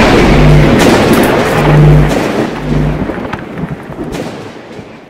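Cinematic logo-reveal sound effect: a heavy rumbling boom with crackling noise and a few short low held notes, fading out over the last three seconds.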